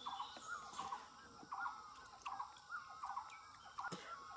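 Birds calling over and over in short, chattering phrases, several a second, with a single sharp click near the end.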